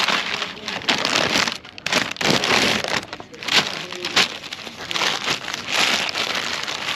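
Takeaway burger wrapping being crinkled and unwrapped: a rustle broken by several sharp crackles.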